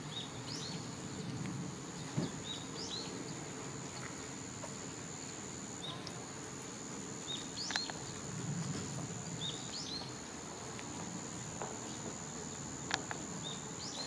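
Outdoor ambience: an insect's steady high-pitched trill that breaks off briefly every few seconds, with a small bird's short falling chirps, often in pairs, every second or two, over a low background rumble.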